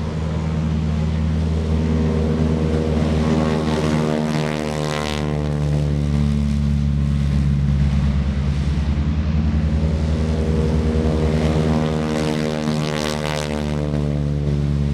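North American T-6 Texans' radial engines at full takeoff power, one plane after another lifting off. Each engine's drone swells and bends in pitch as it passes, about four seconds in and again near the end.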